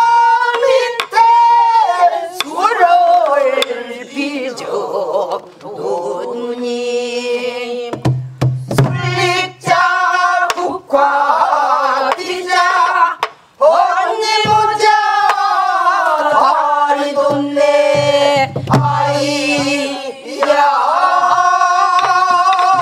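A group of men and women singing a Korean Namdo folk song (namdo minyo) together in unison, the held notes wavering and bending, with a buk barrel drum struck now and then in accompaniment.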